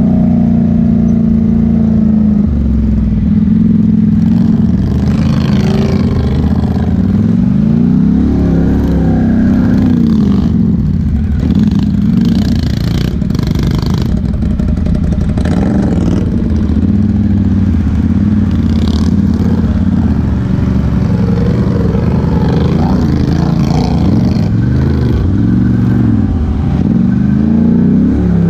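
ATV engine running under load on a rough dirt trail, its pitch rising and falling again and again with the throttle, with some rattling over the bumps.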